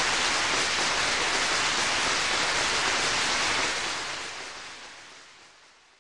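Steady rushing hiss of noise, even and without rhythm, that fades away smoothly from about four seconds in.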